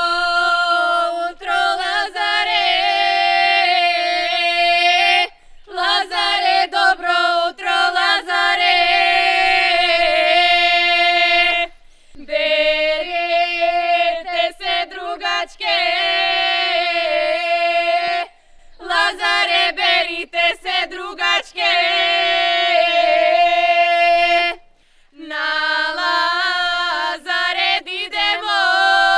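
A group of women singing a Macedonian lazarki ritual song unaccompanied. The song comes in phrases of about six seconds, each ending in a short break for breath.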